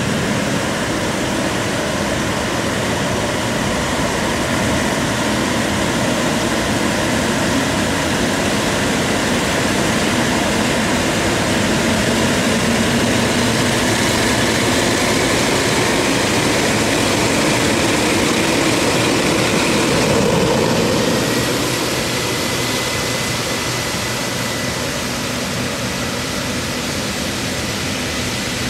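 Emirates Boeing 777's twin jet engines running at low taxi power as the airliner rolls past close by: a steady jet rush with a whine through it. About three quarters of the way through it gets a little quieter as the aircraft turns away, and a thin high whine comes in.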